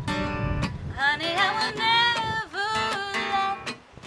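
Acoustic guitar strummed steadily, with singing carrying a gliding melody over it.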